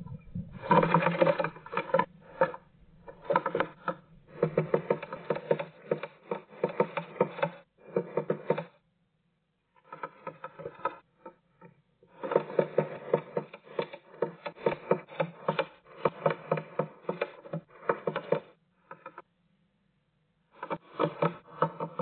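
Great tit pecking at the wooden wall of its nest box, sounding like a woodpecker. The rapid taps on wood come in bursts of a second to several seconds, with short pauses between them.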